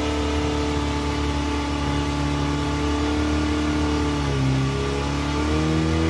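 Off-road trial vehicle's engine running under load at steady revs. The revs drop briefly about four seconds in, then rise again near the end.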